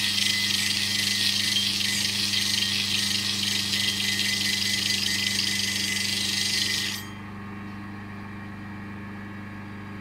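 Steel shearing cutter pressed onto the spinning disc of an Easy Grinder shearing-comb grinder charged with 60-grit grinding sand: a loud, steady scraping hiss over the electric motor's hum. About seven seconds in the cutter is lifted off and the grinding stops, leaving the motor humming alone.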